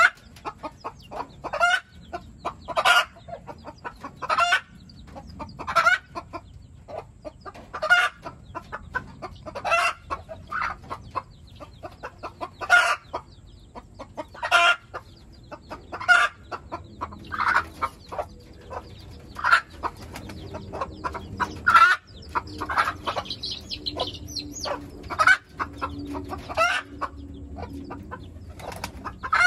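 Chickens calling over and over, a short loud call roughly every one and a half to two seconds, with fainter chirps in between.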